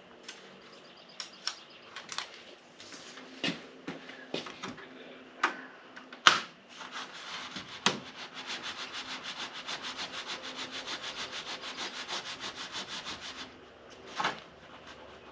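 Scattered sharp clicks and snaps as adhesive backing paper is peeled and a plastic window louver is handled against van glass. Then a hand rubs quickly back and forth along the louver's taped edge, about eight even strokes a second for several seconds, pressing the adhesive onto the window.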